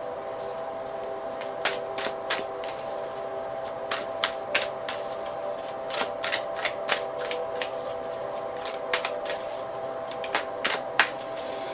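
Tarot cards being shuffled and handled: a string of sharp, irregular clicks and snaps, about twenty of them.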